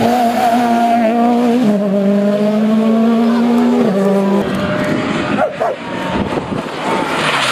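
Rally car engines at high revs as the cars race past on a tarmac stage. The pitch holds steady and steps to a new level about a second and a half in, then gives way to a rougher, more broken engine sound with pitch sweeps in the second half.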